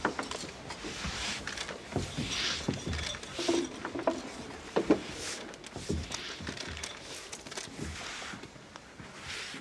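Coloured sand of a Tibetan sand mandala being swept and scraped together: soft swishing, scratchy strokes with scattered small knocks, and a sharper knock about halfway through.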